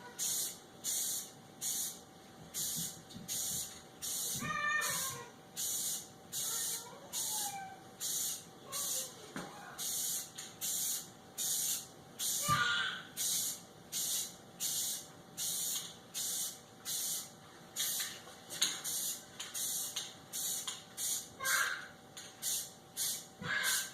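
Spray paint hissing out in a steady run of short bursts, about one and a half a second, as a coat of red is laid on.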